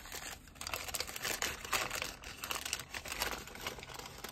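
Crinkling and rustling of sticker sheets and their plastic packets being handled and sorted through, in irregular crackly bursts with short pauses.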